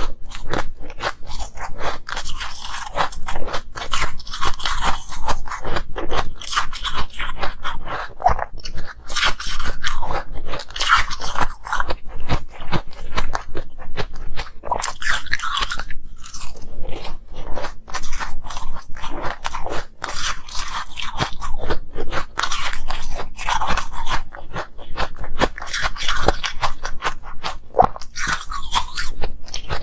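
Close-miked crunching and chewing of frosty ice: bite after bite into brittle ice, a dense run of crackly crunches in quick succession.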